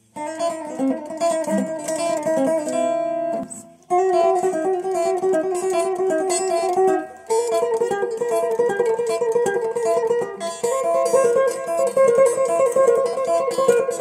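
Solid-body electric guitar played in quick picked single-note runs, in three phrases with brief breaks about four and seven seconds in.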